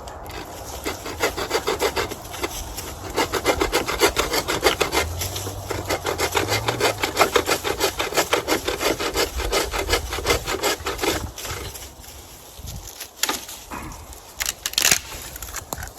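Small hand saw cutting through a branch: a quick, even run of back-and-forth strokes, about four a second, that stops about eleven seconds in, followed by a few scattered strokes.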